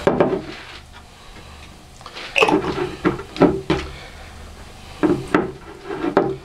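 Glass jars of honey liqueur being handled on a tabletop: a series of short knocks and clinks of glass on the table, with a metal twist-off lid screwed onto a jar near the end.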